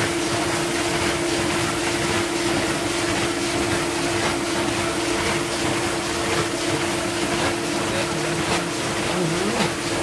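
Vintage KitchenAid Superba KDS-15 dishwasher running its pre-rinse: a steady motor hum under the hiss and splash of water sprayed against a plastic sheet over the open front.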